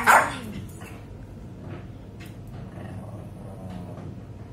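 Small white poodle giving a sharp double bark right at the start, then only faint sounds.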